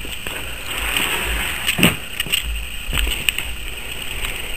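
Footsteps and handling bumps from a handheld camera being carried while walking, over an uneven low rumble on the microphone, with a few sharp knocks.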